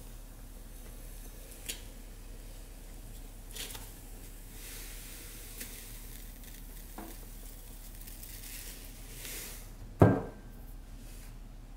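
Fine dry goods poured in a stream into a ceramic crock, a soft hiss that swells and fades, with a few small clicks. About ten seconds in comes a single loud thud with a short ring.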